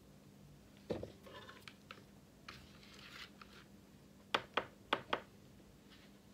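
Handling sounds: a soft thump about a second in, then the crinkly rustle of a plastic powder packet being handled, then four sharp clicks in quick succession as a gloved finger presses the keys of a digital scale.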